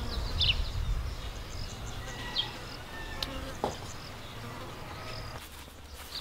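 Summer outdoor ambience: insects buzzing, with short high bird chirps scattered through. A low rumble under it eases off about five seconds in.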